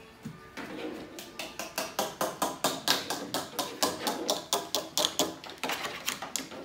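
Rapid, repeated hammer taps, about three to four blows a second, picking up about a second in.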